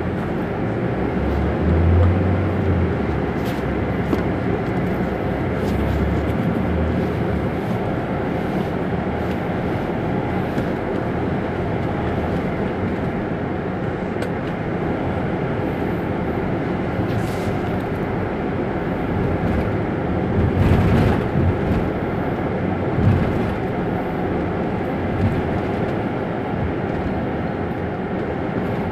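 Diesel engine of an Isuzu Turquoise Euro 6 midibus idling steadily while the bus stands still, with a brief louder swell about two-thirds of the way through.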